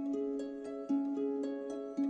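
Music: a plucked-string melody of quick ringing notes, about four a second, repeating a short figure with a low note about once a second.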